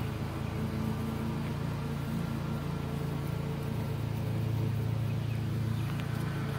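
A car engine running steadily, a low even hum that grows a little stronger about two-thirds of the way in.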